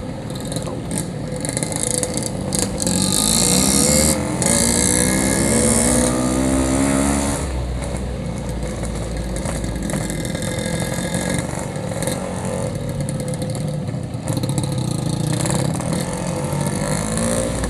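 Yamaha RX-King 135cc two-stroke single-cylinder motorcycle being ridden: the engine note climbs steadily for several seconds as it accelerates, then settles into steadier cruising about halfway through. Wind hiss on the microphone is strongest while it accelerates.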